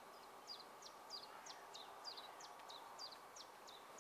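A small songbird singing a long, even series of short, high, down-slurred notes, about three a second, faint under a quiet background hiss.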